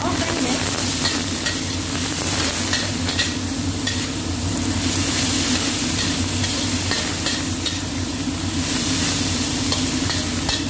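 Cucumber strips and garlic stir-frying in a metal wok: a steady sizzle, with a metal spatula scraping and knocking against the pan every second or so. Under it runs a steady low hum from a kitchen exhaust fan.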